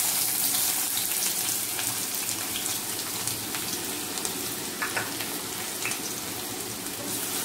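Chopped onions frying in hot oil in a kadai: a steady sizzling hiss with scattered crackling pops, easing slightly as it goes.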